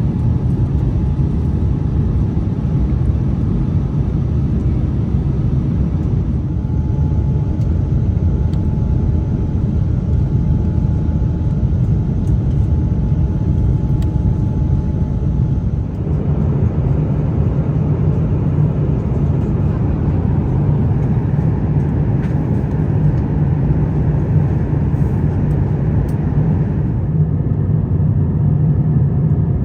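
Steady low rumble of airflow and engine noise in the cabin of an Airbus A350-900 in flight. The rumble grows heavier about halfway through.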